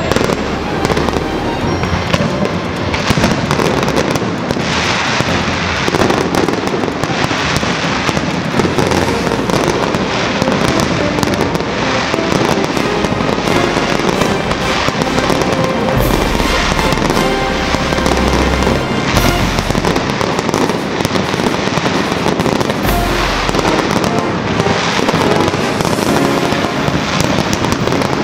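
Large aerial fireworks display: a dense, continuous crackling and popping of bursting shells, with several deep booms in the second half.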